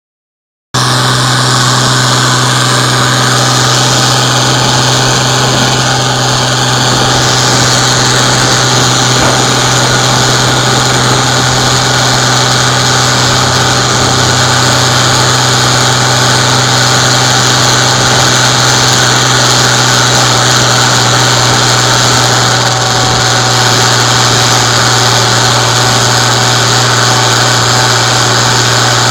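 Fiat 980DT tractor's diesel engine running loud and steady at constant revs, working under load as it hauls a 10-ton digger uphill.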